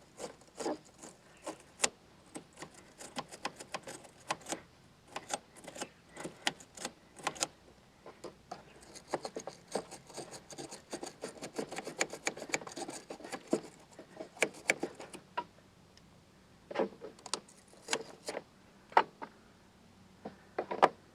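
Irregular metallic clicks and clinks of a battery cable clamp and hand tools being worked onto the battery's positive terminal post, busiest in the middle and sparser near the end.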